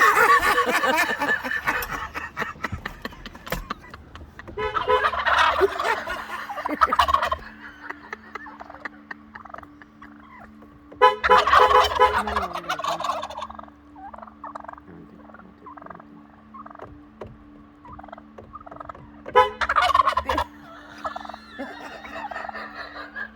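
Wild turkeys gobbling in four loud bouts, with quieter calls between. A steady low hum runs under them from about five seconds in.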